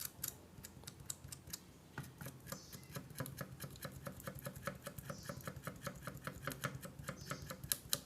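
Enamel insulation being scraped off an aluminium fan-coil winding wire. It comes as faint, rapid little scratching strokes: a few at first, then quicker and steadier from about two seconds in.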